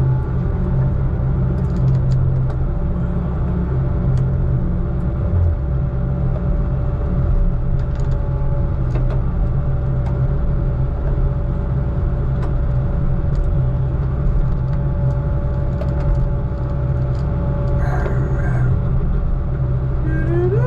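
Heavy diesel engine of logging equipment running steadily, a loud low rumble with a faint steady whine over it.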